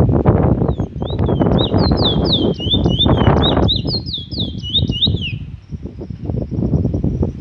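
Trinidad bullfinch (chestnut-bellied seed finch) singing a fast run of clear slurred whistles, about four notes a second for some four seconds, ending on a falling note. Loud wind rumbles on the microphone underneath.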